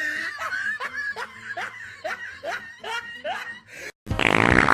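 A person laughing in a run of short snickering bursts, about three a second, breaking off just before the end, where a louder sound cuts in.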